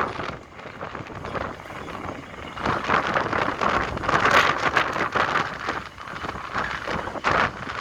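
Diesel engine of a 498-ton coastal gravel carrier ship running as she comes into harbour, heard through strong gusty wind buffeting the microphone, which swells and drops every second or two.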